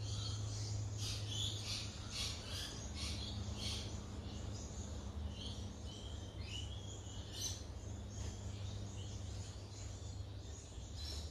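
Small birds chirping, many short high chirps with a few brief held notes, over a steady low rumble of wind on the microphone.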